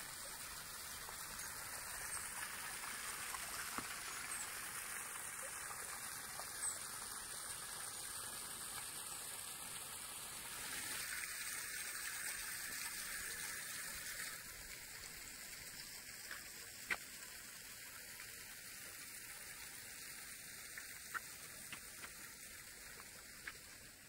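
Water gushing from a pipe into a pond, a steady hiss that turns quieter about halfway through. A few faint clicks are heard later on.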